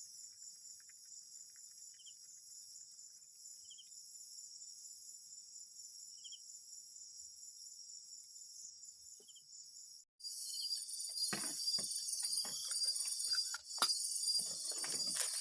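Steady high-pitched trilling of a chorus of crickets and other insects, with a faint short chirp every couple of seconds. About ten seconds in it cuts out for a moment, then comes back louder with scattered knocks and rustles.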